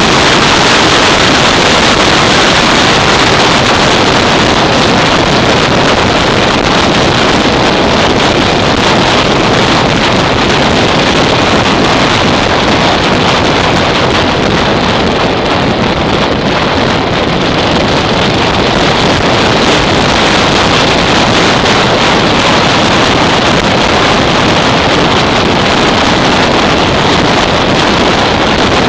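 Loud, steady wind noise buffeting the microphone of a camera on a Yamaha SR 500 motorcycle riding at speed, with the bike's single-cylinder engine running underneath it.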